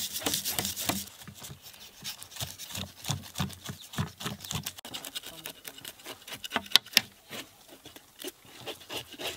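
Knife blades scraping the scales off snakehead (murrel) fish on a steel plate: quick, irregular rasping strokes that are busiest in the first second and thin out near the end.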